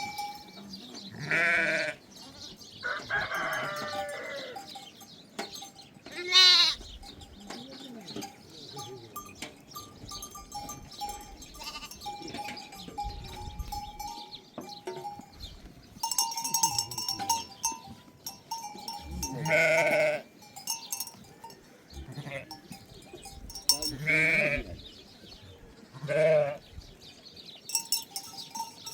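A flock of sheep bleating, with loud calls every few seconds. Bells on the animals ring faintly and steadily underneath.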